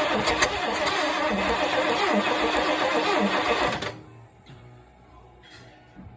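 A 1969 Lincoln's V8 being cranked over by the starter motor without catching, and the cranking stops abruptly about four seconds in. A no-start that the owner puts down to a lack of spark from the Pertronix Ignitor electronic ignition.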